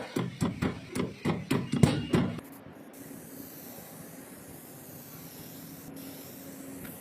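A quick run of sharp strikes or knocks, about four a second, that stops abruptly after a couple of seconds, followed by a faint steady hiss with a low hum.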